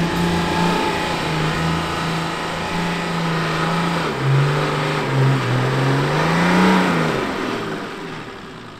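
Nissan GQ Patrol ute's TD42 diesel engine working hard on a steep sand-dune climb. It holds a steady note, drops in revs about four seconds in, climbs again around six seconds, then falls away and fades as the ute loses momentum and fails to make the top.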